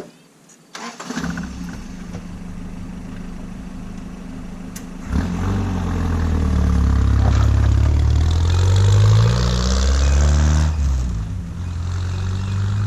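An engine starts about a second in and runs, much louder from about five seconds in, with its pitch rising and falling.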